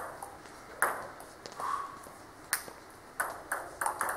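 Table tennis ball clicking sharply off the rackets and the table during a serve and rally, the hits spaced out at first and coming quicker, about three a second, near the end.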